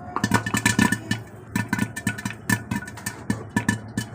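Popcorn kernels popping in hot oil inside a covered iron kadhai, a fast irregular run of sharp pops, several a second, knocking against the lid.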